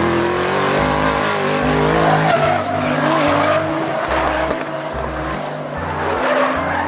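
Race car engine sound running steadily, with tyres squealing.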